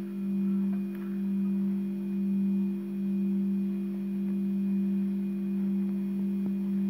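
A steady low hum held at one pitch, with a fainter overtone above it, gently swelling and easing in loudness.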